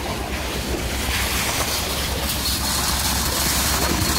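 Steady low drone of a truck-mounted concrete pump's engine running, with wind noise on the microphone.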